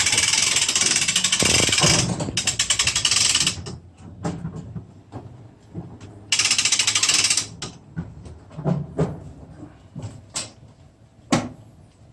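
Hand crane winch ratcheting in a fast, loud clatter for about three and a half seconds, then again for about a second after a pause. Several single clanks and knocks follow near the end.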